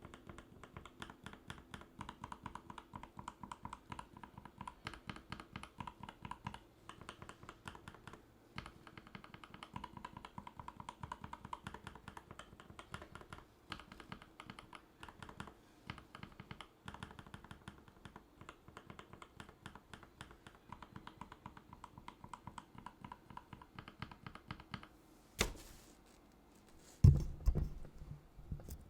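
Steady fast typing on a Rama M65-B mechanical keyboard with a brass plate and linear switches, each keystroke a short click-clack. Near the end the typing stops, and there is one sharp knock followed by a few heavier thumps.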